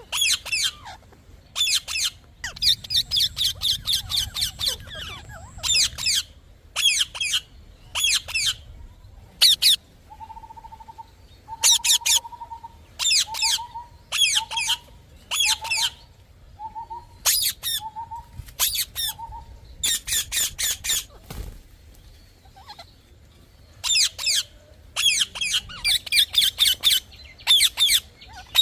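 A parrot screeching in quick clusters of shrill, harsh calls, a burst every second or two. Through the middle a lower, steady whistled note repeats about once a second alongside the calls.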